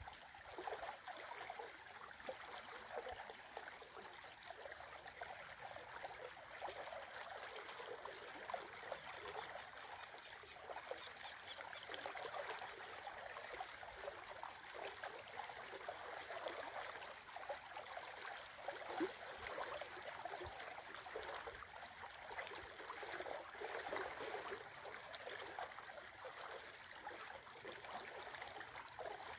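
Shallow river running steadily over its bed, a continuous rippling water sound.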